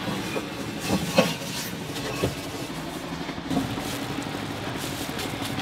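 Light kitchen knocks and clinks from hotteok being made, about five in all, the sharpest about a second in, over a steady background hum.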